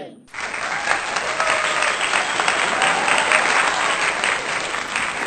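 Crowd applauding: dense clapping that starts abruptly and runs on evenly.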